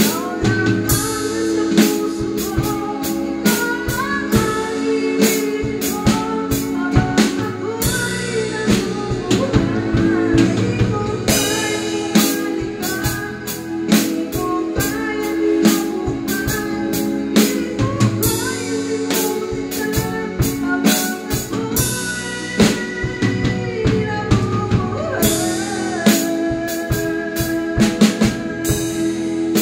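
Live band music: an acoustic drum kit played with sticks, steady strikes and cymbal crashes, over electronic keyboards holding sustained chords and playing a melody line.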